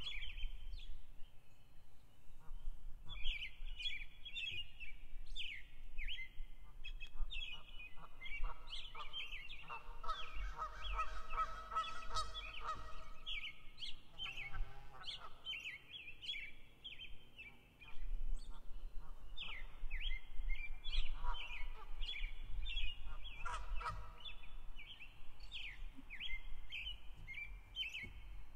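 Morning bird chorus: many small birds chirping in quick, repeated high notes throughout. Lower honking calls of waterfowl break in for a few seconds about ten seconds in, and twice more briefly later on.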